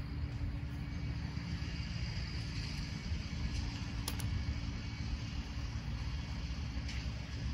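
Steady low rumble of outdoor background noise with a faint hiss, and a light click about four seconds in and another near the end.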